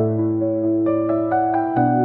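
Gentle background music: soft piano or electric-piano notes over sustained low chords, the chord changing about a quarter second in and again near the end.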